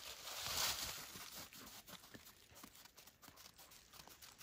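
Faint rustling and crunching of snow and leaves as a dog noses through snowy undergrowth, with a brief hissing rush about half a second in. Light, scattered crunches in the snow follow.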